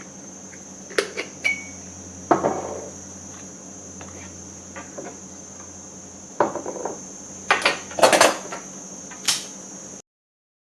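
Metal clinks and knocks of moka pot parts being handled, a few scattered strikes with a cluster of them near the end, over a steady high-pitched whine. All sound cuts off abruptly about ten seconds in.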